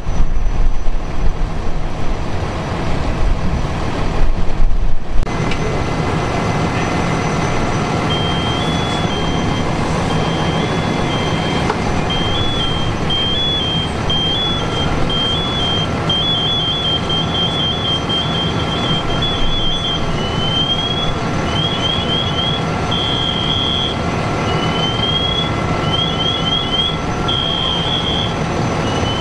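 Fire engine running steadily at the scene, with a few loud low bumps on the microphone in the first five seconds. From about eight seconds in, a high electronic alarm beeps in quick two-note patterns, then gives short rising chirps near the end.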